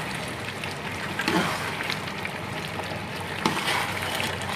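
Beef pieces sizzling and bubbling in desi ghee in a metal pot, being stirred with a metal spoon: the frying-down (bhuna) stage after the cooking water has dried off. A sharp clink about three and a half seconds in.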